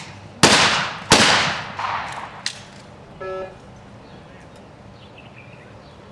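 Two shotgun shots about 0.7 s apart, a skeet double fired at a pair of clay targets, each trailing off in echo. A sharp click follows, then a short tone about three seconds in.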